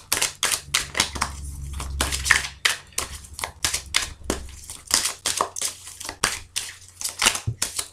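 A deck of oracle cards being shuffled by hand: a quick, irregular run of soft slaps and clicks, several a second, as the cards fall against each other.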